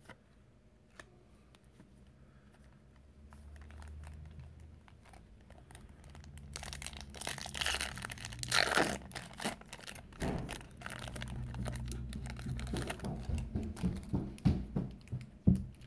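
Foil booster-pack wrapper crinkling as it is torn open, starting about six seconds in and loudest for a couple of seconds, then scattered crackles of the wrapper and cards being handled.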